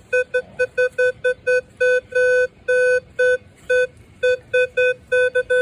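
Minelab Vanquish 440 metal detector beeping as its coil is swept over a nickel: a mid-pitched buzzy tone repeated about three times a second in uneven short and longer beeps. This is its target signal for a nickel, which reads about 13 to 14 on the display.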